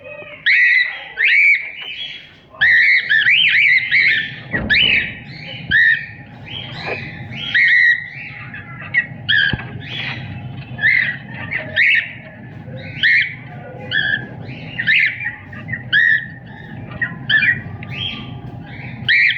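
Cockatiel chirping and whistling: a steady string of short chirps and squawky whistles, one or two a second.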